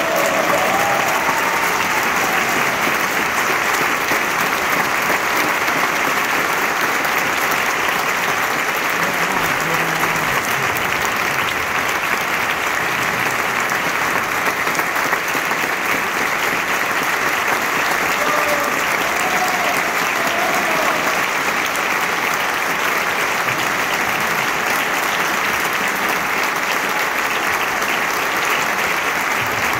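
Large concert audience applauding steadily, a dense unbroken clapping, as an orchestral piece ends.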